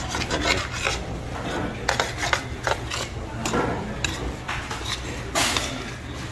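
A metal ladle scraping and clinking against the inside of a metal pot as it stirs boiling ramen noodles in army stew, with a louder scrape about five and a half seconds in. The stirring is meant to keep the noodles from sticking to the bottom of the pot.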